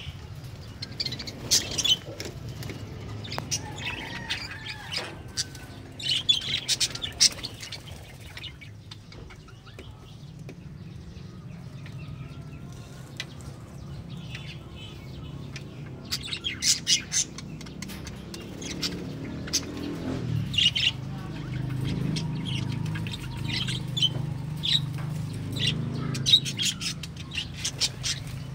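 Budgerigars in an aviary chirping, with short clusters of sharp, high calls coming several times, over a steady low hum that grows louder in the second half.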